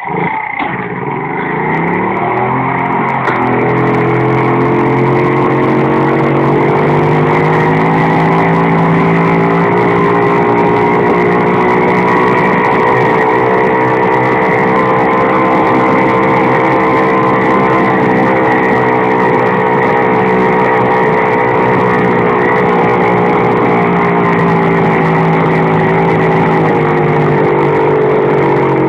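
Honda Monkey's small single-cylinder four-stroke engine pulling up a very steep grade: the engine note rises over the first few seconds, then holds high and steady under heavy load, dropping slightly near the end.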